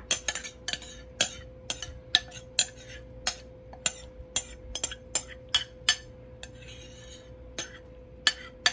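A metal spoon scraping and knocking against a bowl while sauce is spooned out, giving a string of sharp, irregular clinks about twice a second, with a softer scrape a little before the end. A faint steady hum runs underneath.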